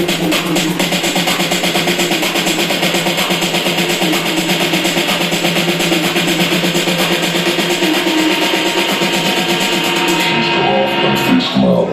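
Music track with a fast, steady beat of drums and plucked strings and little low bass. Near the end the high end falls away, like a build-up before a drop.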